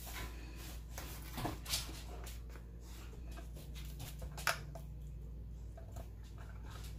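Faint handling sounds of onion pieces and mini bell peppers being pushed onto a wooden skewer over a wooden cutting board: scattered soft clicks and rustles, the sharpest about four and a half seconds in, over a steady low hum.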